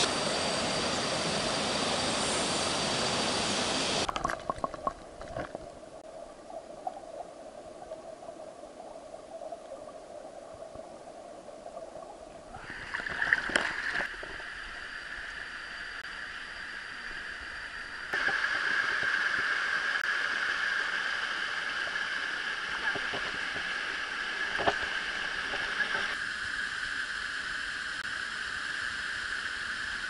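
Flowing mountain stream and small waterfall running over rocks: a steady rush of water that drops abruptly quieter about four seconds in and swells again around twelve and eighteen seconds in.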